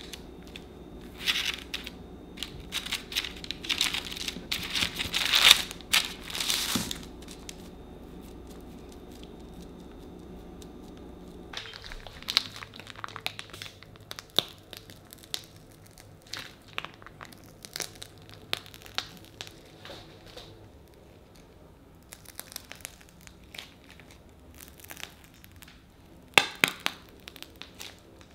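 Baking parchment crinkling and rustling in dense bursts as it is lifted and pressed around a layered sponge cake, loudest a few seconds in. After a lull, short scattered rustles follow as a piping bag of buttercream is squeezed along the cake, with a sharp crinkle near the end.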